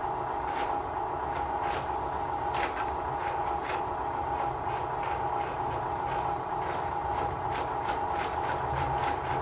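Small electric RC dump truck's tipper motor running with a steady whine as the bed tilts up and back down, with scattered sharp clicks.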